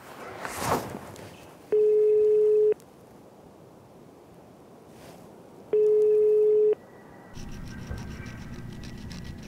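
Telephone ringback tone on a mobile call: two one-second beeps at one steady pitch, about four seconds apart, the line ringing with no answer yet. A soft whoosh comes before the first beep, and a steady low hum with music sets in near the end.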